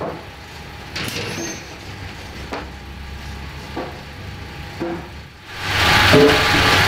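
Lumber grading and conveyor line machinery: a low hum with occasional sharp knocks as timber moves on the rollers. About five and a half seconds in, a loud steady rushing machine noise starts and holds.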